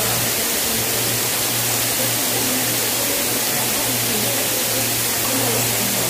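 Waterfall's water rushing and splashing down into the pool: a steady, unbroken rush of falling water.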